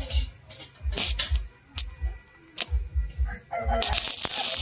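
Stick-welding arc on a steel blade crackling and hissing in short bursts as the electrode strikes and breaks the arc, then burning steadily for about a second near the end.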